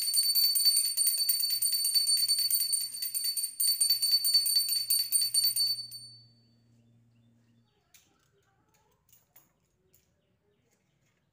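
Brass puja hand bell rung rapidly and continuously, a bright metallic ringing with a brief break about three and a half seconds in. The ringing stops about six seconds in, leaving near silence with a few faint taps.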